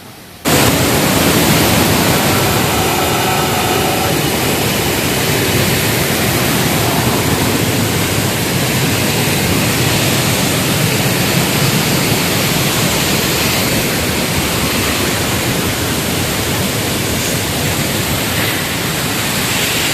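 Waterfall: loud, steady rush of falling water that starts abruptly about half a second in.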